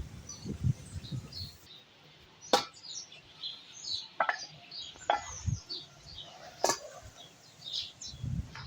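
Birds chirping in the background, many short high calls, with a few sharp knocks scattered through.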